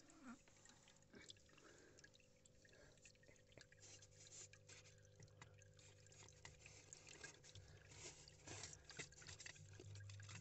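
Near silence: faint scattered small ticks and clicks over a low steady hum.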